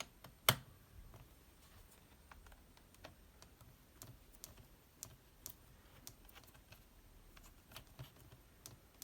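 Scattered small clicks and taps of a precision screwdriver on the tiny bottom-case screws of a MacBook Air as they are tightened. One sharper click comes about half a second in.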